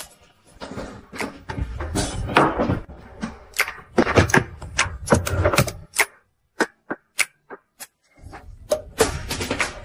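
Light background music with a quick, irregular run of sharp clicks and taps. About six seconds in it drops out to near silence with a few lone clicks, then picks up again near the end.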